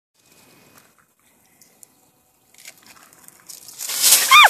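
Dry leaf litter rustling and crackling as an armadillo roots through it. It starts near silent and grows louder over the last two seconds, then comes a short high yelp that falls steeply in pitch just before the end.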